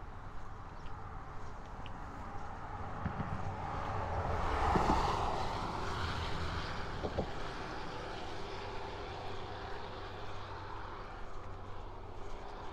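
A vehicle passing, its noise swelling to a peak about five seconds in and then fading slowly, with a few low thumps near the peak, over a steady background rumble.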